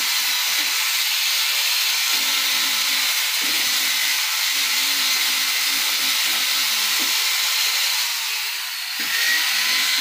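Corded electric drill running steadily with a high whine and hiss, worked against a wooden bed post; it eases off briefly near the end.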